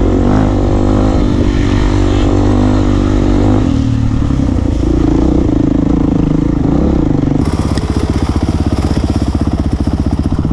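Honda CRF250X four-stroke single-cylinder dirt bike engine running under throttle on a trail ride, its revs dipping briefly near the middle and picking up again. About seven seconds in the sound changes abruptly to a dirt bike engine running at low revs with evenly spaced firing pulses.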